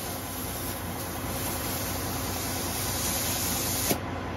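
Steady hiss of air escaping at a truck's inner dual-tire valve stem as the chuck of a glad-hands air hose is pressed onto it. It sounds like air being let out rather than going in, so the hose is not inflating the tire. A click near the end, after which the hiss softens.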